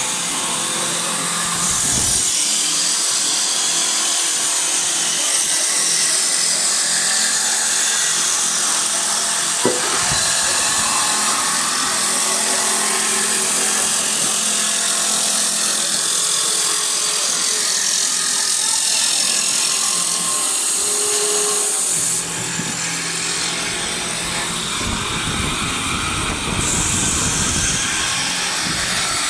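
Wood lathe cutting a spinning wooden blank: a steady, loud hiss of the cutter shaving wood over the machine's running. There is a short sharp knock about ten seconds in, and the sound changes about three quarters of the way through, when a lower rumble joins.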